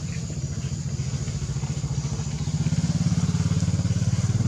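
A small engine running steadily with a fast low pulsing, growing louder about halfway through, as from a motorbike close by.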